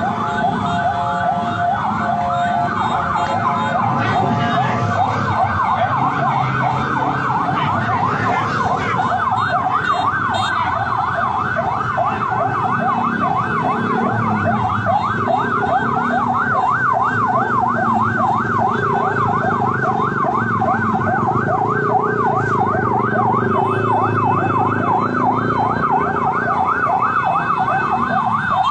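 Police siren in a fast warble, sweeping up and down about three times a second, choppier for the first few seconds, with engine and street noise underneath.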